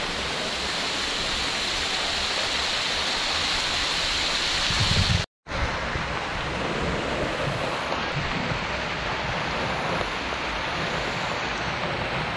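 Waterfall cascading over rock ledges: a steady, loud rush of water close to the microphone. It cuts out completely for a moment about five seconds in, then resumes.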